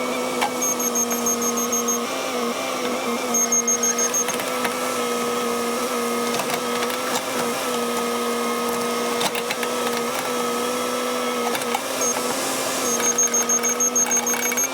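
Cat 308 excavator running, with a steady high whine throughout and, a few times, short runs of rapid high-pitched ticks.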